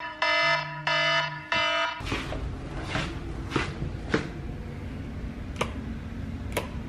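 A smartphone alarm sounds three short pulses of tone in the first two seconds, then stops. Afterwards comes a run of flip-flop footsteps slapping on a wooden floor, and a wall light switch clicks near the end.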